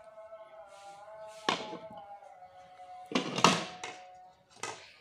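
Lids of covered serving dishes being lifted off and set down, clattering against the dishes a few times. The loudest knocks come about three seconds in. A faint steady tune runs underneath until near the end.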